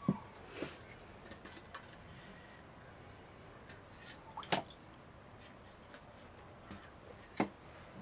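Steel plates and a steel pot knocking on a table a few times, with soft wet squishing and dripping as string hoppers soaked in coconut milk are handled and eaten.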